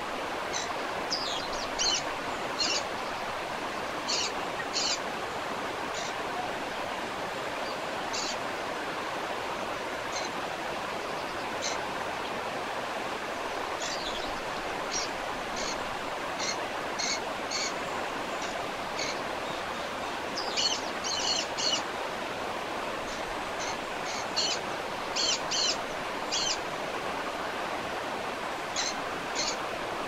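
Steady rushing of a waterfall, with short, high bird chirps coming in quick clusters every few seconds.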